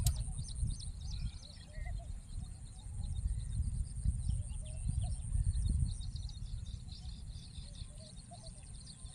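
Wind buffeting the microphone in an uneven low rumble, with small birds chirping and calling over and over in the background and a steady high-pitched hiss. A single sharp click right at the start.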